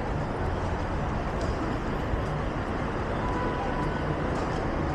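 Steady city street traffic noise: the low, even sound of cars running and passing on a busy road.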